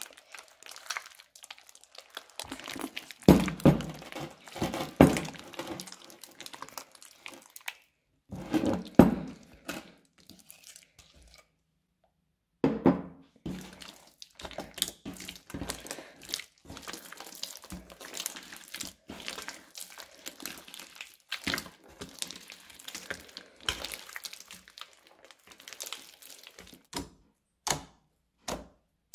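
Thick, textured slime mixed with kinetic sand being squeezed, kneaded and stretched by hand: wet squishing with a crackle of many small pops. The squishes are loudest in the first half. Later, fingers pressing and poking into the flattened slime give a run of small sticky pops and clicks.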